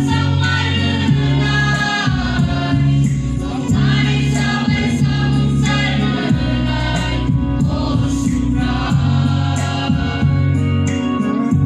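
Mixed choir, mostly young women's voices with some men's, singing a gospel song through microphones. Steady, sustained low accompaniment notes hold underneath the voices.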